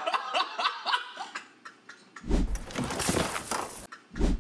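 Men laughing hard in short, rapid bursts, then, about two seconds in, a loud rustling and bumping of movement close to a headset microphone as one of them doubles over laughing, with a second short bump near the end.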